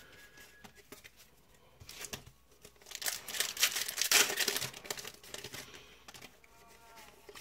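Foil Yu-Gi-Oh booster pack being crinkled and torn open for about two seconds, starting about three seconds in, with light handling of trading cards before and after.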